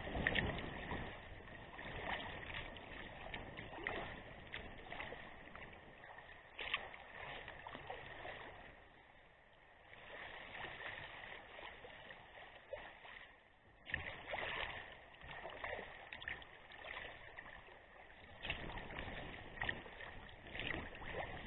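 Sea kayak paddle blades dipping and splashing in choppy salt water, a stroke every second or two, with water slapping against the hull. The splashing eases off twice around the middle.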